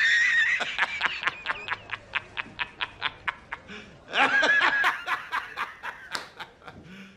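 A man laughing hard in a high-pitched cackle: a loud held shriek, then rapid 'ha' pulses about four a second that slowly fade, and a second loud burst of laughter about four seconds in.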